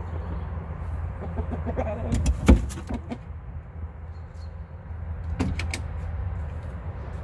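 A few sharp knocks, the loudest about two and a half seconds in and another short cluster around five and a half seconds, over a steady low rumble.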